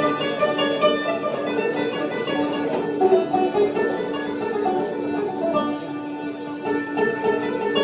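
An Algerian chaabi ensemble playing an instrumental passage led by plucked string instruments, with a violin. There is no singing.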